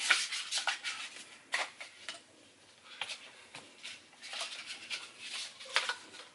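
Irregular clicks, knocks and scrapes of gaming-chair parts being handled and fitted together during assembly, about a dozen short sounds with rustling between them.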